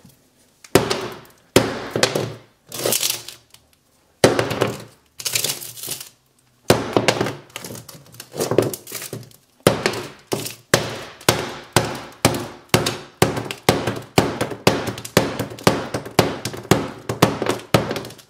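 Hammer blows smashing the glass front of an iPhone 8 Plus, each strike a sharp crack with the crunch of shattering glass. A few spaced blows come first, then a quick run of strikes about two a second.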